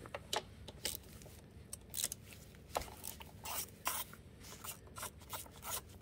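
Hand ratchet with an extension and 8 mm socket clicking in short irregular runs as a sprocket cover bolt is backed out.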